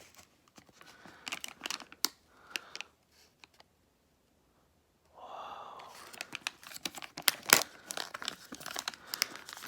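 Crinkling and tearing of a Chobani Flip yogurt cup's foil lid as it is peeled back and handled, in two spells of small crackles with a pause of about a second and a half between them.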